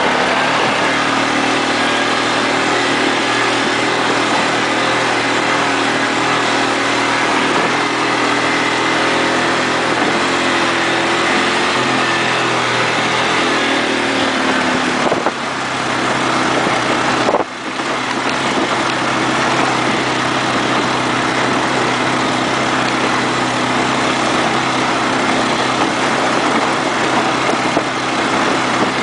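ATV engine running steadily, its pitch shifting slightly now and then, with two brief dips in sound about halfway through.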